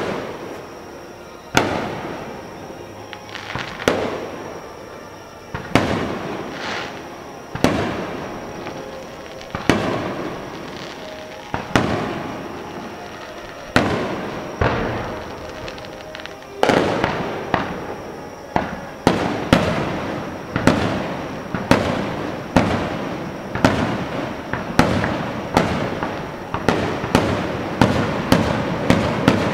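Aerial firework shells bursting, each bang echoing and dying away. At first they come about one every two seconds; from about halfway they come faster and faster, several a second near the end.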